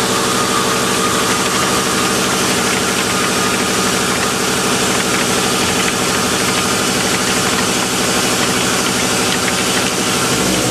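An engine running steadily at a constant speed, with a fast, even pulse; its low hum changes shortly before the end.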